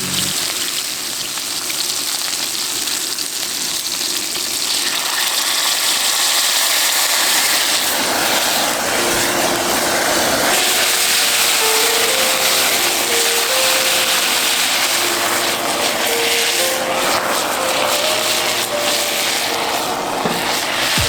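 Strong gusty wind roaring, growing louder about five seconds in and staying loud.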